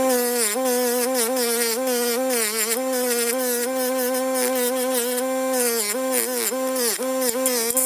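A small electric power tool's motor running with a steady buzzing whine. Its pitch dips briefly again and again as it is pressed against the metal work, with scratchy grinding noise over it.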